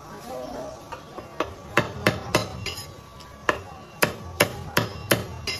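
Cleaver chopping through roast meat onto a wooden chopping block: about ten sharp chops, starting about a second and a half in, in two quick runs with a short pause between them.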